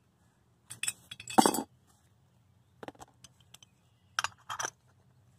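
Metal carburetor parts clinking and tapping as they are handled and set down on a bench: a few scattered light clicks in small clusters.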